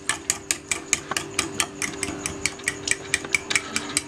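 Yogurt being beaten with a metal utensil in a glass bowl, the utensil clicking against the glass in a quick, even rhythm of about five clicks a second.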